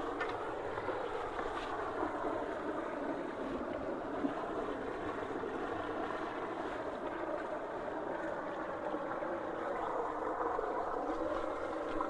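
Backed-up floodwater rushing steadily down into a culvert through a whirlpool at its inlet.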